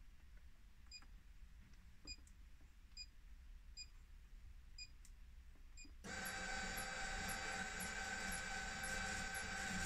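Faint short beeps about once a second, then about six seconds in the electric drive motors of a Bright Tech Developments Power Blind start up with a steady whine and hum as the destination blind rolls scroll through the numbers.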